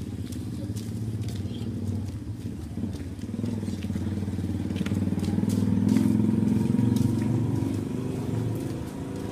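A motor vehicle engine running, getting louder about six seconds in and easing off near the end.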